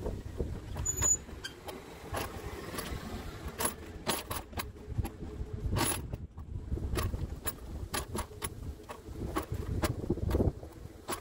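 Mobility scooter running along the footpath: a low rumble of motor and wheels with many irregular clicks and rattles as it jolts over bumps.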